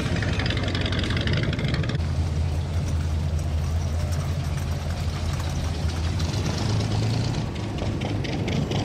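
Classic car engines idling as the cars roll slowly past one after another: a steady low engine drone, strongest in the middle.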